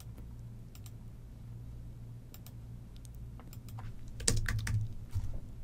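Typing on a computer keyboard: scattered single keystrokes, then a quick run of louder keystrokes about four seconds in.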